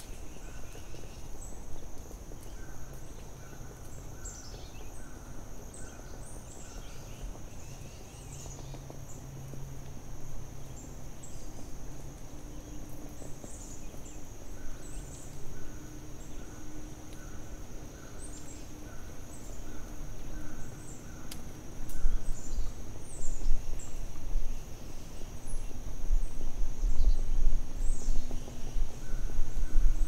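Forest ambience: birds calling with short high chirps and runs of a repeated mid-pitched note, over a steady high-pitched drone. A low rumble grows louder about two-thirds of the way in.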